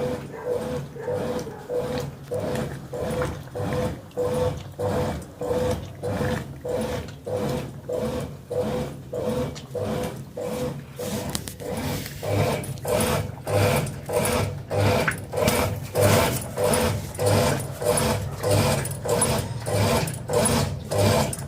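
Eslabón de Lujo 7 kg washing machine running its wash, churning in a steady rhythm of about two to three strokes a second over a constant motor hum, growing louder about halfway through.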